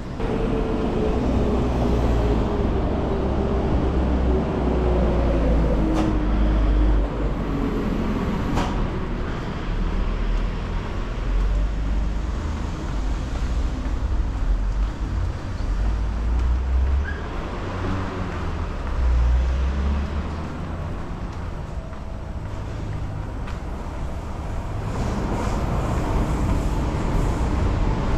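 Train running on an elevated viaduct: a deep, steady rumble with a motor whine that falls slowly in pitch over the first several seconds. The rumble swells again near the end.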